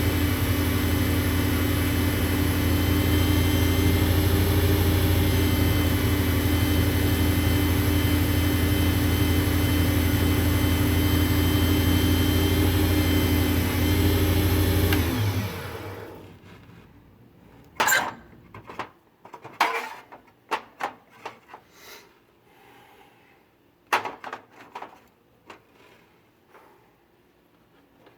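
Small WEN benchtop lathe with a one-third-horsepower motor running at steady speed, then switched off about halfway through and spinning down quickly. Several sharp clicks and knocks follow.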